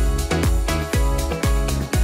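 Electronic background music with a steady, deep kick-drum beat, roughly two to three hits a second.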